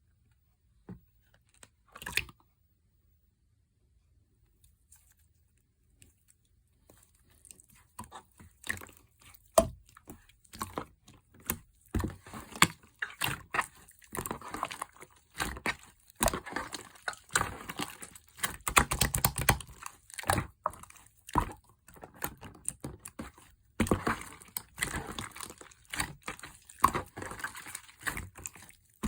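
Close-up handling sounds: scattered clicks at first, then from about eight seconds in a busy run of crinkling, tapping and scraping.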